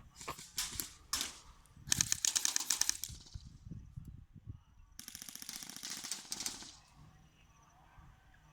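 Airsoft guns firing: a few short shots, then two rapid full-auto bursts of clicking shots, one about a second long and a longer one of nearly two seconds.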